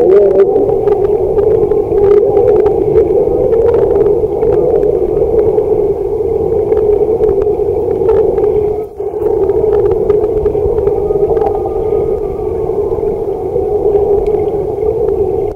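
Muffled underwater sound of a swimming pool picked up by a submerged camera: a steady drone with scattered faint clicks, dipping briefly about nine seconds in.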